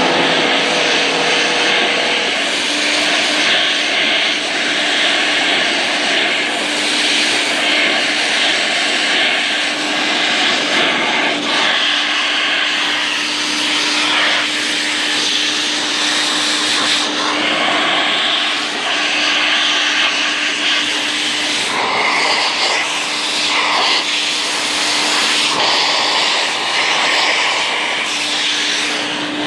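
Electric handheld blower running steadily: a loud rush of air over a steady motor hum, blowing the water off freshly washed RC tires. The rush shifts in tone now and then as the air jet plays over the tire treads.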